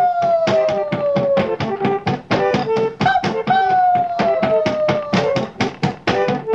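Background music: a fast, even percussive beat with long held notes that slide slowly down in pitch, twice.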